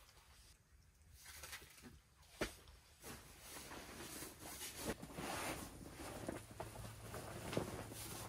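Rustling and flapping of the fabric cover of a folded inflatable camping sofa as it is unfolded and spread out, with a sharp knock about two and a half seconds in. The rustling grows busier from about three seconds on.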